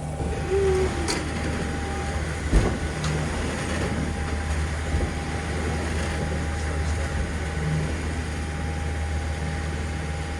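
A boat's engine drones steadily while the sailboat rides through a big ship's wake, with water rushing along the hull. Several knocks and clunks come in the first three seconds, the loudest about two and a half seconds in.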